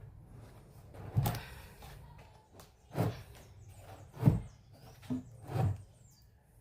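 A series of about five knocks and thumps, a second or so apart, from handling a speaker cabinet and its parts, the loudest a little past the middle.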